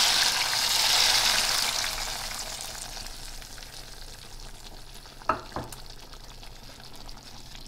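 Hot melted butter poured from a frying pan into a pot of boiling stew, sizzling loudly at first, then the sizzle dying away over a few seconds. A brief knock about five seconds in.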